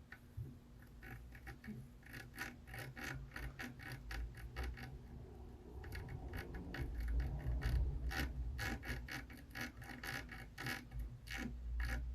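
Irregular small clicks and scratching from soldering tools and solder being handled at a repair bench, with a low rumble that grows louder from about halfway through.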